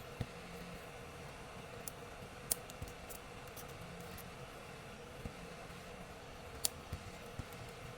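Light, sharp clicks and taps of small repair tools handled on a phone, about eight scattered over a faint steady hum, the sharpest about two and a half seconds in and again near seven seconds.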